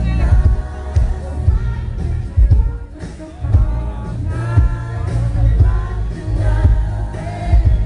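Pop song with a sung vocal and heavy bass, played loud over a DJ's sound system.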